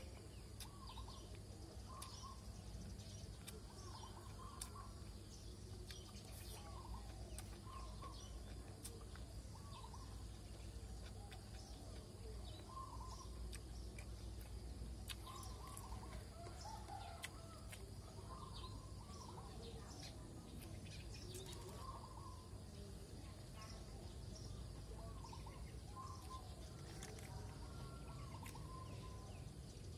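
Birds calling over and over, short hooked calls every second or two, over a steady low rumble with scattered faint clicks.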